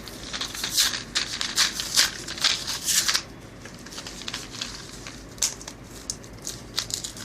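Hands handling small plastic toy capsules and packaging: a quick run of crinkling and clicking for about three seconds, then scattered lighter clicks.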